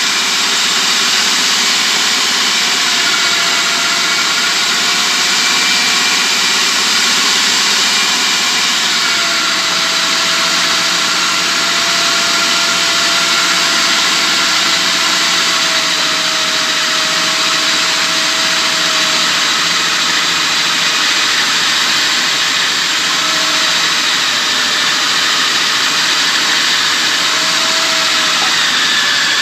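Food processor motor running steadily, mixing flour and vegetable oil into pie dough. A faint whine drifts slightly in pitch over the steady motor noise.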